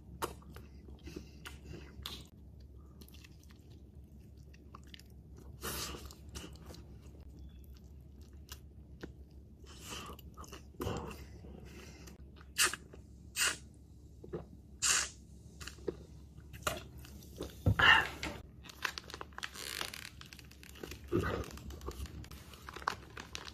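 A person eating a duck leg close to the microphone: chewing and biting, with irregular crunches that come thicker and louder in the second half.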